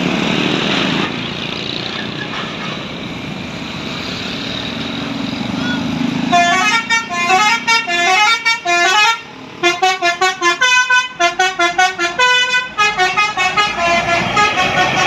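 Bus telolet horn, a Basuri musical multi-tone horn, playing a fast melody of short staccato notes that starts about six seconds in, with a brief break midway. Before it, a steady noise of bus engine and traffic.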